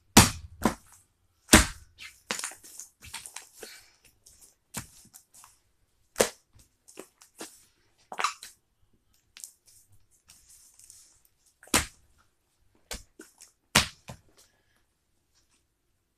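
Homemade fluffy slime being handled and mixed: scattered sharp slaps and clicks, with a few short hissy stretches in between.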